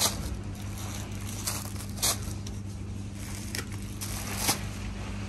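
Clear plastic packets of dry food (buckwheat, pasta shells, rice, red lentils) crinkling as they are handled in a shopping cart. There are sharper crinkles at the start, about two seconds in and about four and a half seconds in, over a steady low hum.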